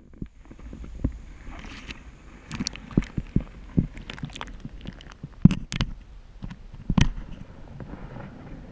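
Muffled underwater sound of a shallow spring-fed stream heard through a submerged camera: a low steady rumble of moving water with scattered sharp clicks and knocks.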